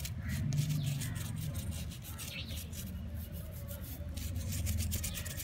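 Toothbrush bristles scrubbing a hard disk drive's circuit board, a quick run of short scratchy strokes, as the board is brushed clean.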